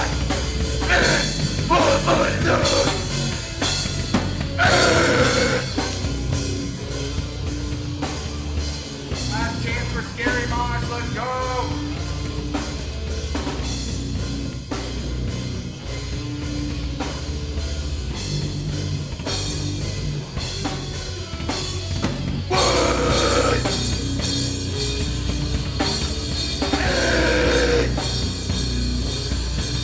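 Live rock band playing loudly: drum kit with bass drum, amplified guitar and bass, with vocals coming in at the start and again after about 22 seconds.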